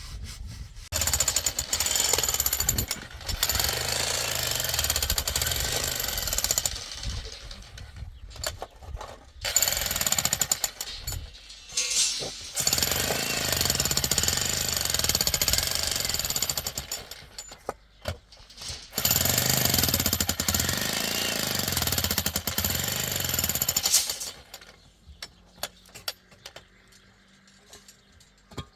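Electric hammer drill chiselling into masonry in four runs of several seconds each, with short pauses between. After the fourth run it stops, leaving scattered knocks.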